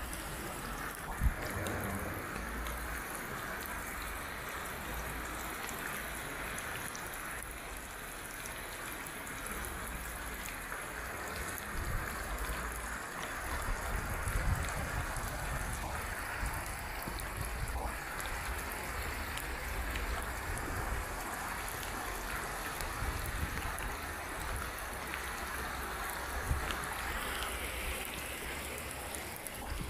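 Muddy rainwater flowing in a steady rush over a dirt street. Low rumbles come and go beneath it, with one sharp knock about a second in.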